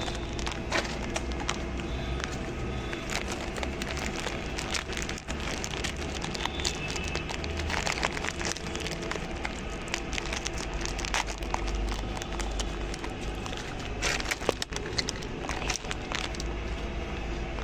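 A dog crunching hard round biscuits: irregular crisp cracks and crunches over a steady low background rumble.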